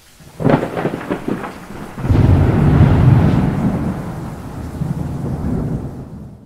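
Thunder over steady rain. A crackling crack comes about half a second in, then a long low rumble swells at about two seconds and slowly fades.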